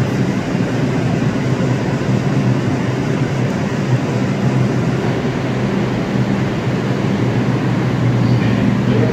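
New York City Subway R142 train standing at the platform with its doors open, its onboard equipment running with a steady low hum.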